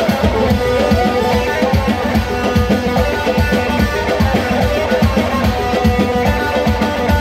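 Live Middle Eastern-style music: a guitar plays a melody over a steady, fast drum rhythm.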